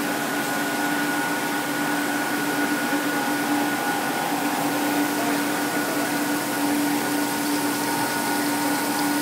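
Rubber hose production line running: a steady machine hum with a few fixed tones over an even hiss, with water jets spraying onto the hose in the cooling tank.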